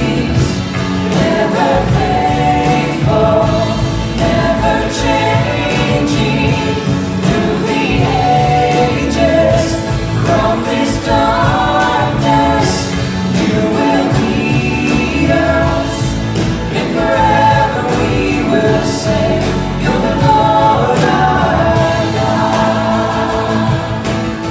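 Church worship music: voices singing a hymn or worship song over instrumental backing.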